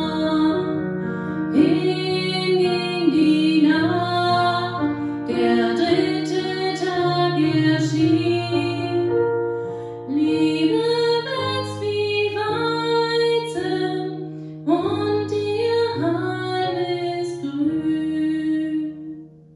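Music: a woman singing a slow song with instrumental accompaniment, in long held phrases. It fades out at the end.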